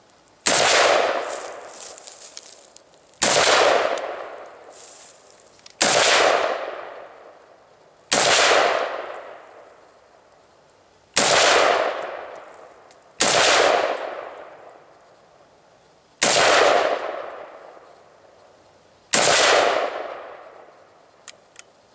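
Windham Weaponry AR-15 rifle fired slow and deliberately, eight single shots about two to three seconds apart, each trailing off in a long echo. Two faint clicks follow near the end as the rifle runs empty.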